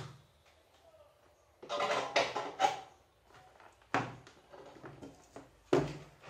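Knocks and rustling of small tools and cable being handled on a workbench, with a sharp knock near the end as a spool of solder is set down on the table.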